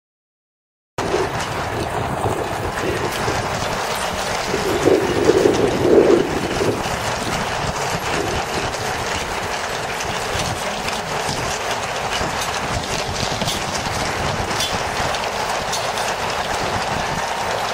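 Hooves of a long column of Household Cavalry horses clattering on a tarmac road, a dense, steady clatter of many hooves at once that starts abruptly about a second in and swells briefly around five seconds in.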